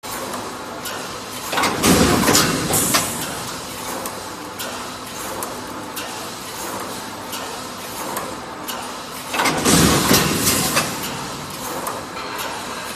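Automatic wire mesh panel welding machine running: a steady mechanical noise scattered with sharp clicks as it spot-welds the wires, and two louder surges of noise, about two seconds in and again about ten seconds in.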